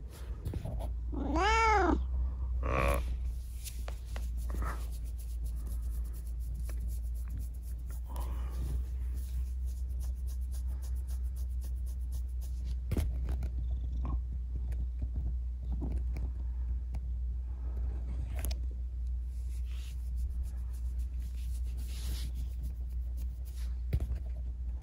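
Cat purring steadily as it is stroked, with one clear meow rising then falling in pitch about a second and a half in, and soft rustling of fur under the hand.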